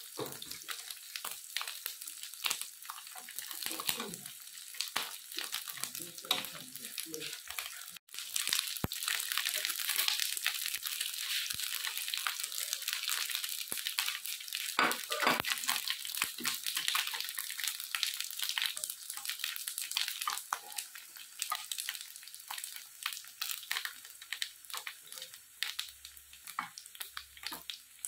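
Food stir-frying in hot pork fat in a pan, with a dense sizzling and crackling hiss. It cuts out for an instant about eight seconds in, then comes back louder.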